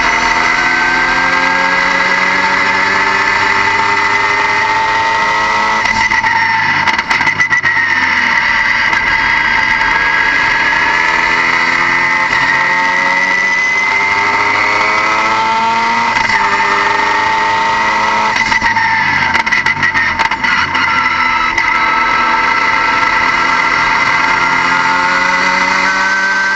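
Car engine running under load, its pitch climbing again and again and dropping back as the revs rise and fall, with a steady high whine over it.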